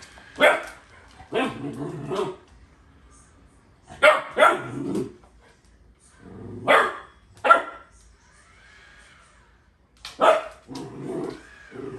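Newfoundland puppy barking in short bursts, several barks in a cluster, with pauses of a second or more between clusters.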